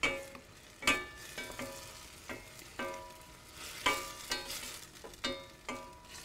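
Wooden spatula stirring sauce in a stainless steel skillet, scraping and knocking against the pan about a dozen times at an irregular pace, each knock leaving the metal pan briefly ringing. Under it, the faint sizzle of the sauce cooking.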